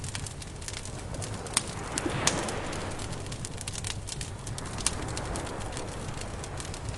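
Wood campfire crackling, with a dense run of small pops and a few sharper, louder ones, over a steady low rumble.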